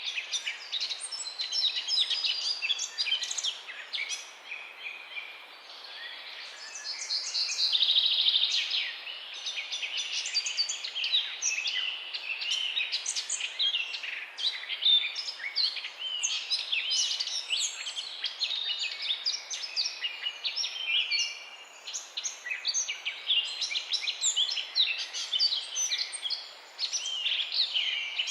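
Many songbirds singing at once: overlapping chirps, trills and whistled phrases with no pause, swelling to a louder, denser stretch about eight seconds in.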